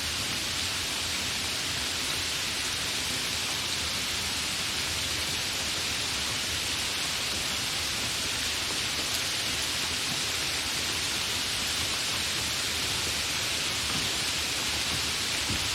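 Continuous steady rain, an even hiss of falling rain with no change in strength.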